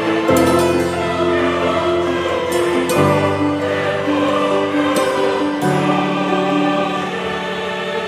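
Background music of slow, held chords that change about every two and a half to three seconds.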